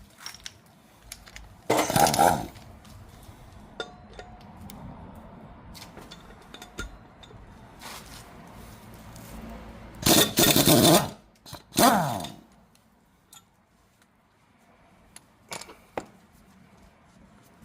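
A power tool fitted with a 6 mm hex bit runs in three short bursts, about two, ten and twelve seconds in, the last one winding down in pitch. It is undoing the bolts of a SYM GTS125 scooter's rear brake disc rotor. Light metal clinks of the tool and bolts come in between.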